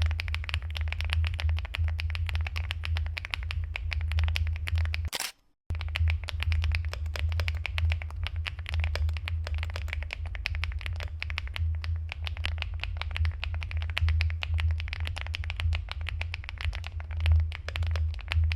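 Fast, continuous typing on an Aula S75 mechanical keyboard fitted with XVX keycaps: a keyboard sound test. The key clicks run densely over a steady low hum and break off briefly about five seconds in.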